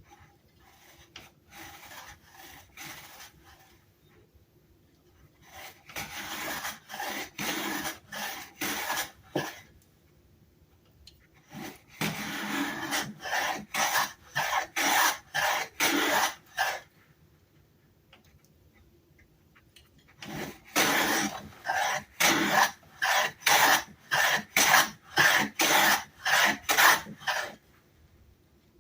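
Sargent 409C hand plane, a metal bench plane with a corrugated sole, being pushed along a wooden board in short rasping strokes, about two a second. The strokes come in four runs, the first faint and the later ones louder.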